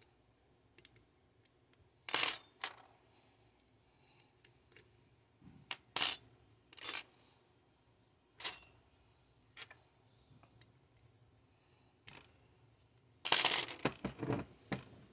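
Small metal chainsaw parts and hand tools clinking and clattering on a workbench as they are picked up and set down: scattered single clinks, then a denser, louder run of clatter near the end.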